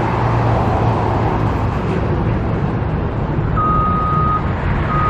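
Heavy construction machine's engine running steadily under load, with its reversing alarm starting to beep near the end: one long beep, then a second about a second later.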